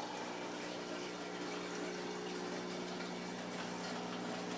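Aquarium filtration running steadily: a pump's even hum over the rush and bubbling of circulating water.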